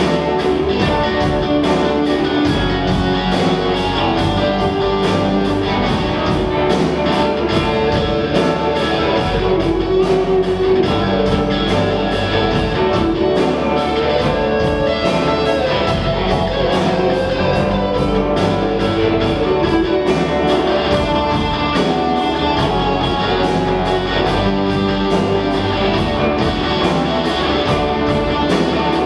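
Live rock band playing: electric guitars, bass guitar and a drum kit, with a steady drumbeat.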